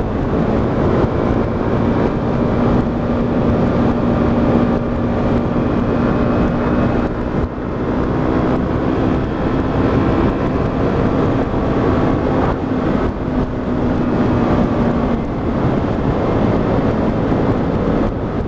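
125cc motorcycle engine running at a steady pitch while riding, with wind rush over the microphone; the engine note loosens and drifts about three-quarters of the way through.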